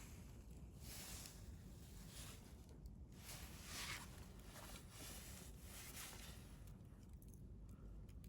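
Wood campfire burning quietly: soft swells of hissing with a few faint crackles near the end.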